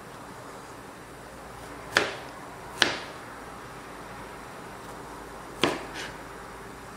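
Kitchen knife cutting through cucumber and striking a plastic cutting board: three sharp chops, about two seconds in, just under a second later, and near the end, with a softer tap right after the last.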